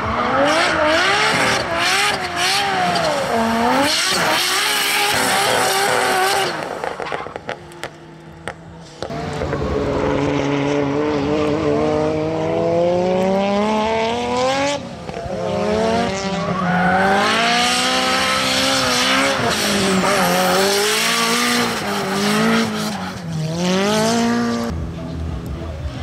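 Nissan S13 drift cars sliding sideways, their engines revving up and down hard with the driver's throttle over the hiss and squeal of spinning tyres. The sound drops away for about two seconds a quarter of the way in, then an engine climbs steadily in pitch before it goes back to rapid revving.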